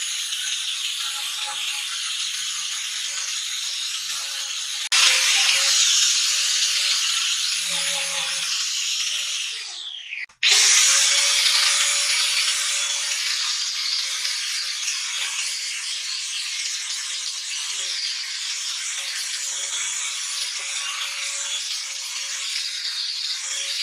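Electric angle grinder sanding wood: a steady motor whine over a loud hiss from the abrasive on the carving. About ten seconds in the motor winds down and stops for a moment, then a grinder fitted with a sanding drum starts up sharply and runs on sanding.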